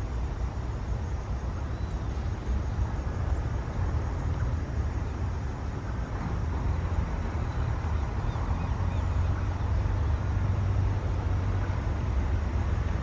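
Jet engines of a Boeing 737-800 (CFM56 turbofans) rumbling steadily as the airliner comes in on final approach to land, growing a little louder over the second half as it nears.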